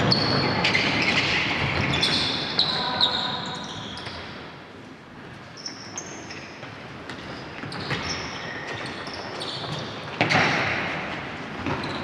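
Indoor futsal in a gymnasium echoing around the hall: sneakers squeaking on the wooden floor, a few sharp kicks and bounces of the ball, and players calling out, louder again about ten seconds in.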